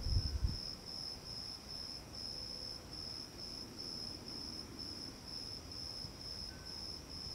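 Cricket chirping steadily outdoors: a high, even pulsing trill of a little over two pulses a second. A brief low rumble comes right at the start.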